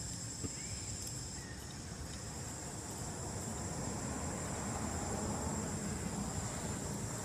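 Steady high-pitched insect drone, with a low rumble that swells in the second half.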